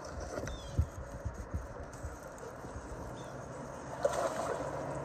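Water sloshing and trickling close by, with a few low knocks in the first couple of seconds and a louder splashy stretch near the end. Short chirps, likely a bird, sound twice in the background.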